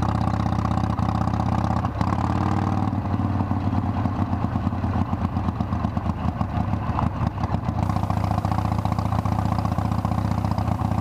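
Harley-Davidson Sportster's air-cooled V-twin engine running steadily at low road speed, heard from a camera mounted on the handlebars.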